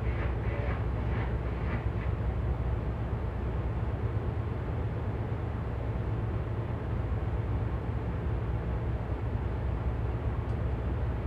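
Steady low rumble of a crew boat's diesel engines as it manoeuvres alongside another vessel to berth.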